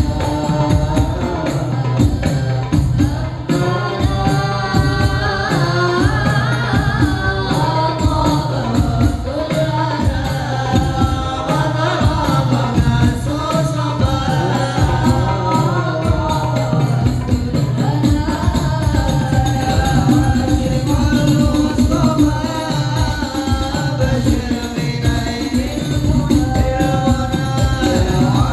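Voices singing an Islamic devotional song (sholawat) over a steady, fast beat of hand-struck frame drums with jingles.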